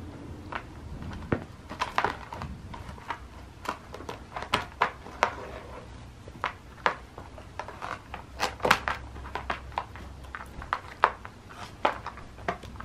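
Cardboard packaging crackling and scraping under a cat's claws and body as she paws at it and rolls on it: many short, irregular snaps and scratches.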